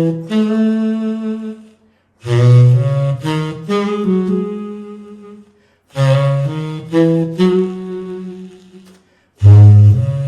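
VHorns sampled saxophone played live from an EWI USB wind controller: a single low-register saxophone line in short melodic phrases, with brief pauses between them.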